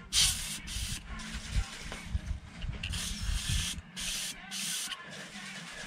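Can of compressed air duster sprayed through its straw at a pleated metal hydraulic/transmission strainer, hissing in several short bursts to blow leftover gunk out of the pleats.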